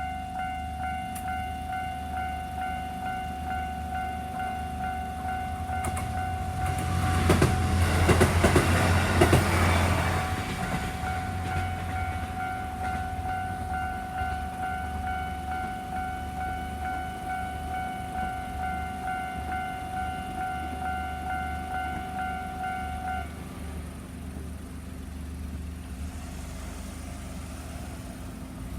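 Level-crossing warning bell ringing steadily while a diesel train runs over the crossing, with the train's passing and wheel clatter loudest for about four seconds, starting about seven seconds in. The bell stops a little over twenty seconds in as the crossing clears.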